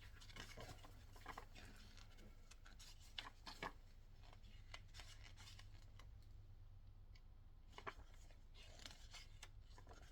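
Faint paper rustling with a few light ticks as a printed instruction booklet is pulled out and leafed through, over a low steady hum.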